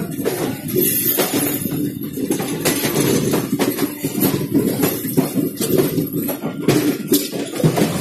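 East Coast Express passenger coach in motion, heard on board: a steady rumble with irregular metallic knocks and rattles as the steel wheels run over the track.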